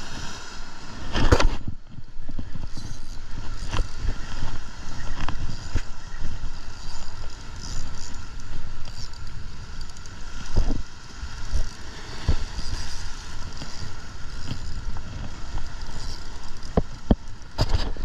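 Wind rumbling on the microphone over waves washing against the jetty rocks, with several sharp knocks and clicks of handling, the loudest about a second in.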